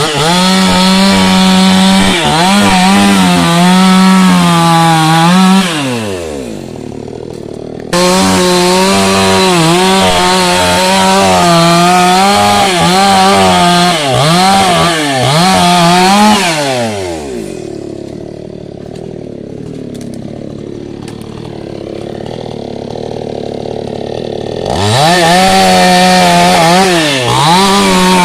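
Two-stroke chainsaw running at full throttle and cutting wood, its engine note sagging now and then under load. Twice it falls back to a lower idle, about 6 seconds in and again at about 17 seconds, and revs back up each time.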